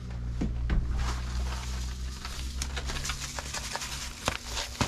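Zip-top plastic bag of bait fish crinkling as salt is poured in to brine them, with scattered small clicks and ticks. A low steady hum underneath stops about four seconds in.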